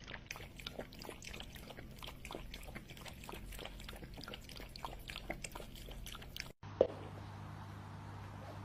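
Two cats lapping milk from a bowl: a rapid, irregular run of small wet clicks and licks. It breaks off about six and a half seconds in, giving way to a steady low hum with a single thump.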